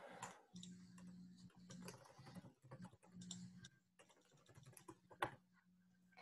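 Faint typing on a computer keyboard: an irregular run of key clicks, with one sharper click about five seconds in, over a steady low hum.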